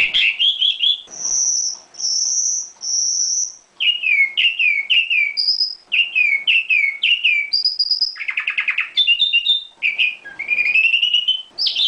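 Nightingale singing a varied, loud song: a quick trill, three long high whistled notes, then repeated groups of three falling slurred notes, a rattling phrase, and a rising trill near the end.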